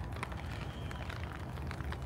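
Rain falling, with scattered drops tapping irregularly over a low steady rumble.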